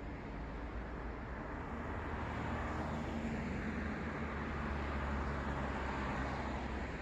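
Road traffic: a car passing close by, its low engine hum and tyre noise swelling over a few seconds and easing off near the end, over steady traffic noise.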